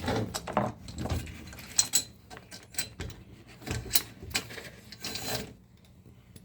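Irregular clicks, rattles and rubbing of small metal hardware being handled and fitted by hand: the garage door opener's belt turnbuckle and rail parts. The handling is busiest at first and tails off near the end.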